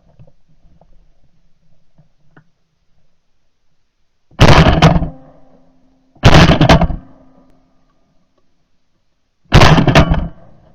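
Three shotgun shots fired at game: the second about two seconds after the first, the third about three seconds later, each with a short echoing tail.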